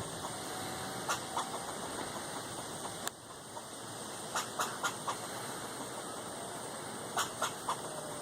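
Squirrel barking: short sharp calls in bursts, two about a second in, four around the middle and three near the end, over a steady background hiss. A single sharp click comes about three seconds in.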